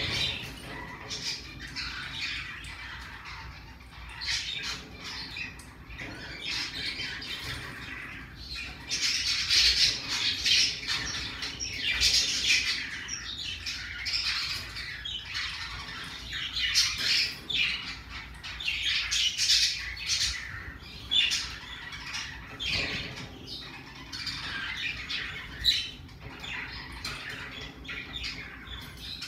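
Pacific parrotlet squawking and chirping in short, high calls repeated all through, with louder bursts about ten seconds in and again around seventeen and twenty seconds.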